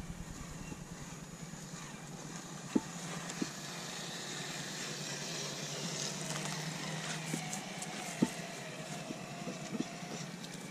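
Traxxas TRX-4 RC crawler's electric motor and gearbox whining as it drives slowly over sand and roots, the whine rising and falling in pitch with the throttle. There are a few sharp clicks along the way.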